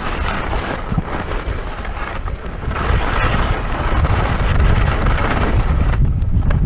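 Wind buffeting a skier's camera microphone at speed, a low rumble that grows louder about three seconds in, over the hiss of skis sliding on snow.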